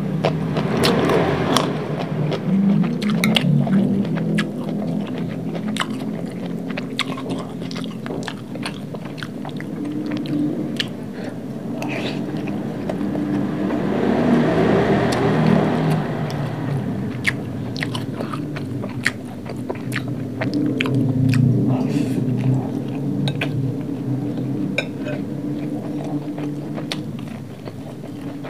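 Close-miked chewing and biting of a mouthful of fried rice, with many sharp crunchy clicks throughout; a raw green chili is bitten near the start and a breaded fried patty near the end. Around the middle there is a few seconds of noisier scraping as a spoon scoops rice from a glass plate.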